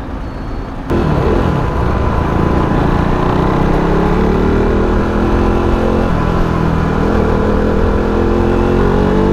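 A KTM RC 390's single-cylinder engine accelerating hard. After about a second its pitch climbs steadily, drops at an upshift about six seconds in, then climbs again through the next gear.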